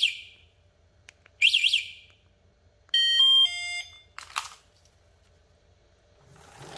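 Motorbike anti-theft alarm's warbling electronic siren cutting off just after the start, followed by a short second warble about a second and a half in. About three seconds in comes a quick run of electronic beeps stepping up and down in pitch.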